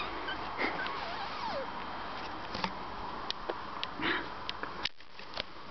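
Finnish Spitz puppies playing in grass: rustling and scuffling with scattered light clicks, and a few short falling squeaks about a second in.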